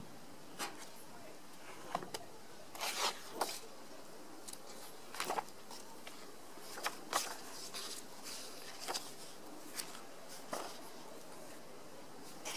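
Pages of a softcover book turned and flipped by hand: short papery rustles and flicks at irregular intervals.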